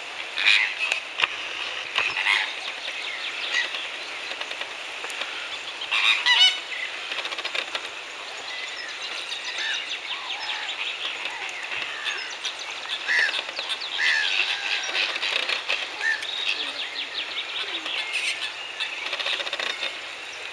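Flock of flamingos calling: a constant goose-like honking and chatter from many birds at once, with louder bursts of calls every few seconds.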